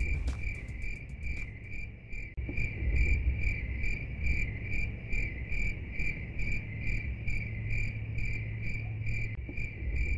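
Insect chirping in a steady, even rhythm of about two chirps a second, over a low rumble.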